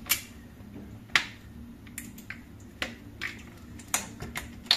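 A plastic bottle of cooking oil handled over a mixing bowl: a run of about seven sharp, irregular plastic clicks and taps, the loudest about a second in.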